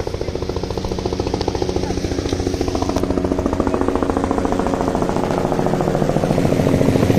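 Helicopter flying low overhead, its main rotor making a rapid, even chop over the turbine's steady tone, growing louder as it comes closer.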